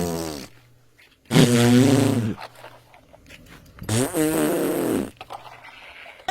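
Three raspy, buzzing comedy sound effects, each about a second long and bending down in pitch.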